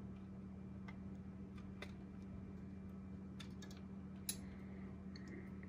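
Faint scattered light clicks and ticks of a plastic lipo charger case being handled and pulled apart during disassembly, with one sharper click about four seconds in, over a steady low hum.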